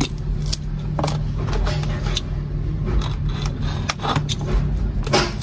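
Hands cutting and peeling the plastic wrapping off a cardboard smartwatch box: a series of short crinkling and scraping sounds, about eight in all, over a steady low hum.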